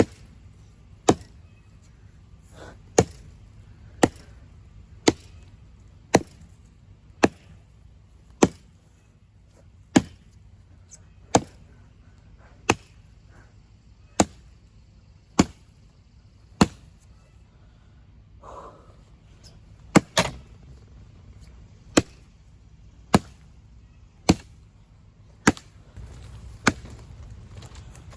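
Double-bit axe chopping into a fallen pine log near the ground: sharp, single strikes about one a second, with a short break past the middle. He is using the axe's deliberately dull edge, kept for chopping near the ground.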